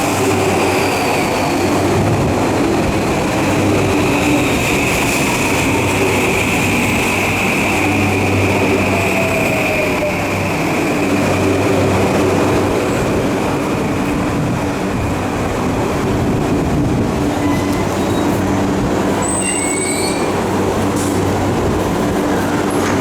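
Tokyu 3020 series electric commuter train running, heard from inside a car: a steady running rumble and motor hum, with a high whine that slowly falls in pitch over the first half. A few short, high wheel squeaks come near the end.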